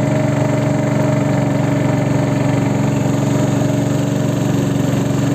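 A boat's engine running steadily at an even speed, with a constant hum.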